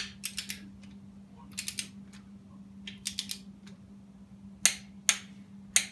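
Socket ratchet clicking as bolts on a water pump are turned: three short runs of quick clicks, then three louder single clicks near the end.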